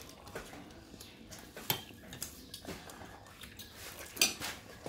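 Crispy bread wiped and scraped around a wok to mop up the sauce: quiet rubbing with a few sharp clicks, the loudest one near the end.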